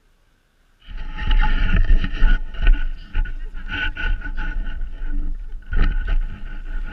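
A loaded plastic sled sliding fast down a snowy slope, heard from a camera riding on the sled: a continuous rough scraping rumble with sharp jolts over bumps, and wind buffeting the microphone. It starts abruptly about a second in.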